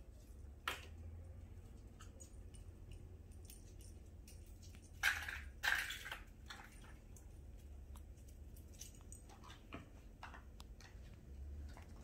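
Pet paws and claws scuffling and clicking on a wooden floor as a dog and a kitten play, with two louder brief scrabbles about five and six seconds in.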